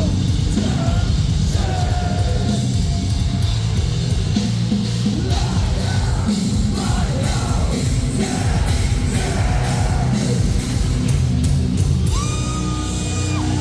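Live metalcore band playing loud, with distorted guitars, drums and yelled vocals. About twelve seconds in, the playing gives way to long held, ringing notes.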